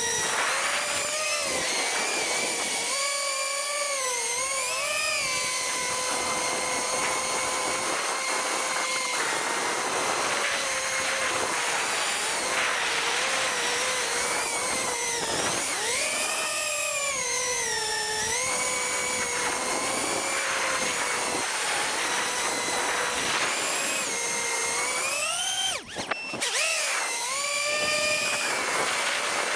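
Small FPV quadcopter's electric motors whining, heard from a camera mounted on the drone itself, the pitch sliding up and down with the throttle as it flies low and fast. About 26 seconds in, the whine briefly drops out with a short crackle.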